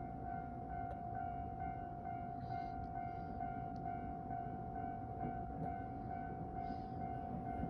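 Japanese railway level-crossing alarm ringing: a steady high tone pulsing about twice a second, over a low background rumble.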